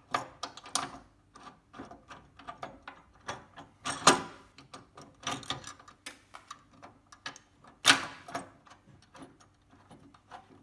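Small metal clicks and clinks of washers and nuts being handled and fitted onto the studs of a caster camber plate, with two louder metal knocks about four seconds and eight seconds in.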